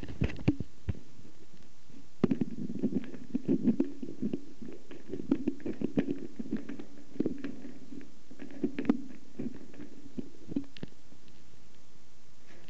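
Metal school lockers being handled: latch handles lifted and rattled, making a run of irregular clicks and knocks.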